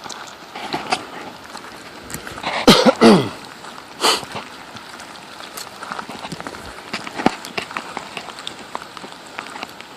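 Walking in steady rain: a soft patter with many small ticks and crunches. About two and a half seconds in comes a brief, loud falling vocal sound in two parts, followed by a sharp click about a second later.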